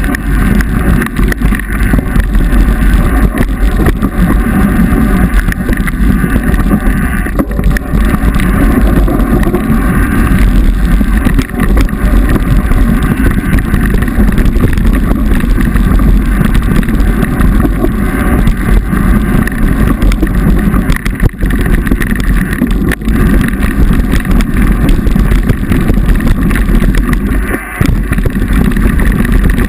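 Mountain bike riding fast down a dirt singletrack, heard through an action camera's microphone: loud, steady wind buffeting over the rumble of tyres on the trail and small rattling knocks from the bike. The noise dips briefly near the end.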